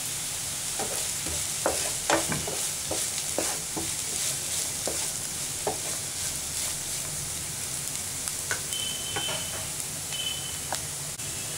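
Shredded cabbage, onion and green chillies sizzling in oil in a non-stick frying pan while a wooden spatula stirs them. The spatula knocks and scrapes against the pan, mostly in the first half.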